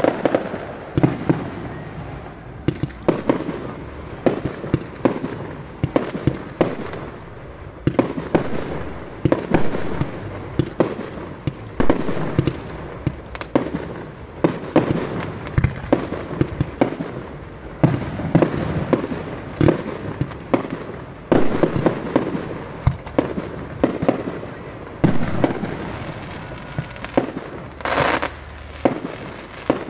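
Fireworks display: aerial shells launching and bursting in quick succession, often several bangs a second, with a few short lulls.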